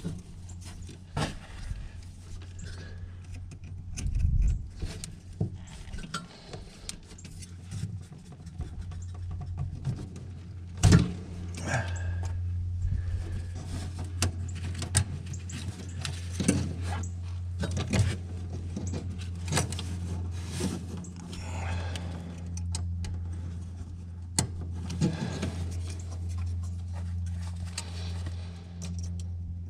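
Metal clinks, taps and small rattles of hand work with tools, screws and wires, with a sharp knock about eleven seconds in. A steady low hum runs underneath.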